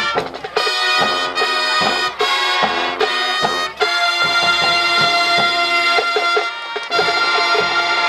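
High school marching band's brass playing loud, with short punched chords for the first few seconds, then long held chords from about halfway through.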